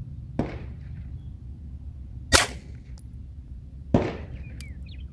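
9mm HK VP9 pistol shots: three reports. A duller one with a trailing echo comes just after the start, a sharp, loud crack about two and a half seconds in, and another duller report with an echoing tail about four seconds in.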